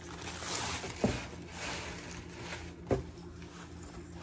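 Clear plastic packaging crinkling as it is pulled off a small folding cooler bag, with two sharp thumps, about a second in and again near three seconds.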